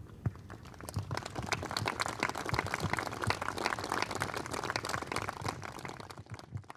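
Audience applauding, swelling over the first second or two and dying away near the end.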